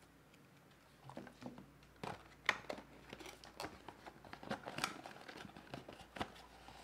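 Small cardboard accessory box and its cardboard insert being handled and pulled apart: irregular crinkling, rustling and light taps, starting about a second in.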